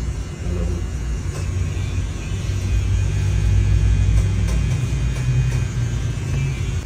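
Street traffic: a car's engine rumbling low as it passes close by, growing louder through the middle and easing off toward the end.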